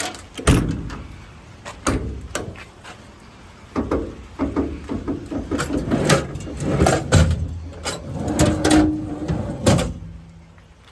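Metal compartment doors and drawers of a truck service body being worked open and shut: a run of clanks, rattles and latch knocks that dies away near the end.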